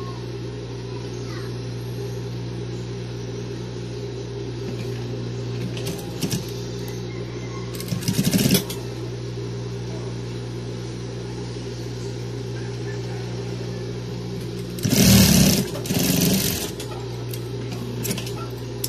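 Electric sewing machine with its motor humming steadily, running two short bursts of stitching: a brief one about eight seconds in, and a longer, louder one around fifteen to sixteen seconds in.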